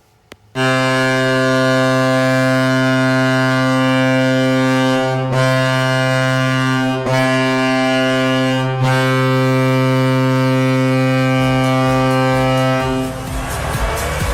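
NHL arena goal horn sounding one long, steady, deep blast for about twelve seconds, dipping briefly three times. Near the end a goal song with a beat and crowd noise take over.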